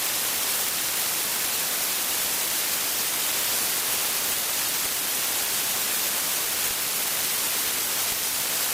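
Steady, even static-like hiss of cockpit audio from a light bush plane, a Just Aircraft SuperSTOL, picked up during a run on the runway; no distinct engine tone or other event stands out.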